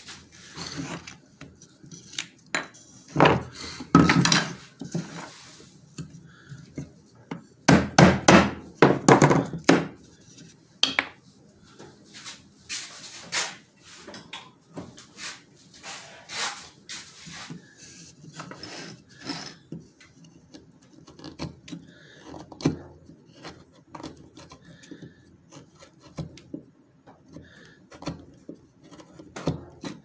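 A small knife scraping and cutting into a wooden board by hand, with irregular strokes and knocks of the wood and tools on the workbench, loudest in two spells of clattering a few seconds in and again near the middle.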